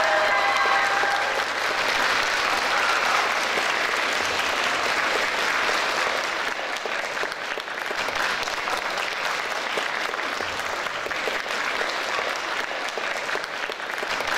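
Audience applauding steadily, a dense patter of many hands. The last notes of the dance music fade out about a second in.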